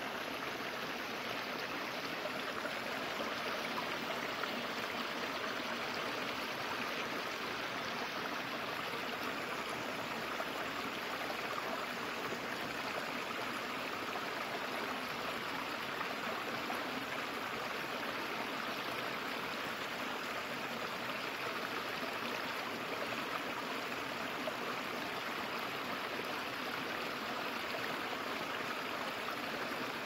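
Woodland stream flowing: a steady, even rush of running water.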